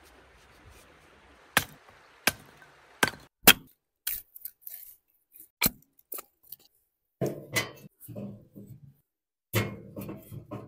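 A run of sharp knocks and clicks at uneven spacing, like hard objects being handled or struck. From about the middle on they become duller and heavier.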